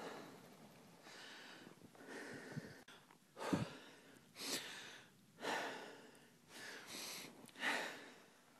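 A person breathing close to the microphone, short in-and-out breaths about once a second.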